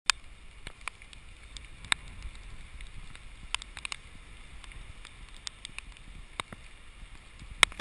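Rainy outdoor city ambience: a low steady rumble with scattered sharp ticks and clicks, and two louder clicks at the very start and just before the end.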